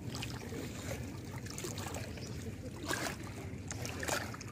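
Water dripping and splashing off a cylindrical net fish trap on bamboo hoops as it is lifted out of the river, over a steady low rumble. A couple of short knocks come about three and four seconds in, as the trap comes down on the stone bank.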